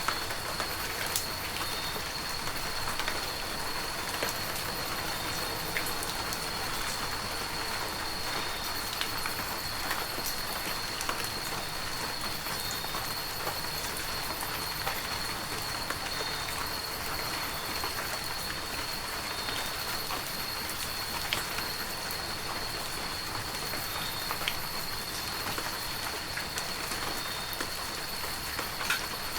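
Heavy rain falling steadily, a dense even hiss with scattered sharp drop hits, and a thin steady high tone underneath.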